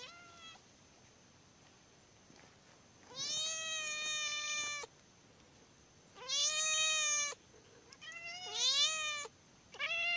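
A cat meowing: about four long, drawn-out meows a second or two apart, starting about three seconds in, the first lasting nearly two seconds.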